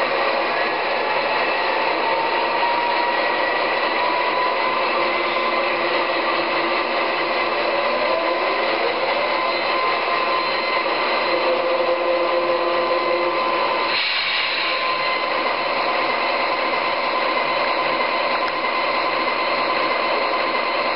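Digital diesel engine sounds from the speaker of an MTH Rail King GE ES44AC model locomotive, running steadily at idle after its startup sequence. A rising tone comes a little before the middle, and a short burst of hiss about two-thirds of the way through.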